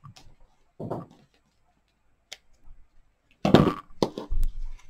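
Scissors snipping ribbon ends: a few small clicks and a soft cut about a second in. Near the end comes a louder clatter and rustle as the scissors are set down on the plastic-covered table and the card is handled.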